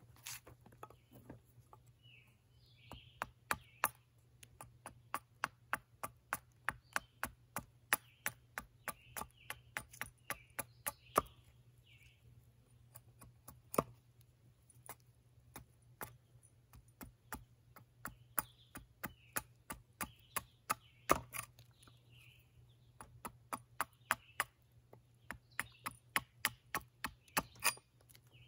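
An edge tool chopping into a wooden spoon blank: sharp strokes, about two to three a second, in runs with short pauses. Birds chirp faintly in the background.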